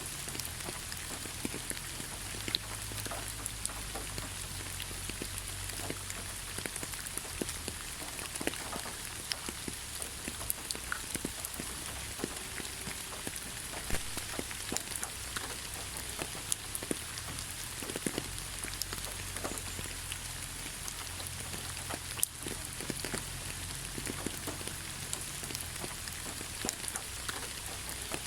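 Steady rain falling on leaves: an even hiss with many separate drops ticking irregularly on top.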